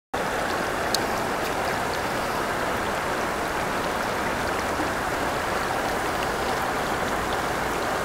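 River water rushing steadily over a low weir and through a shallow, stony channel: an even rush with small splashes ticking through it and one sharper splash about a second in.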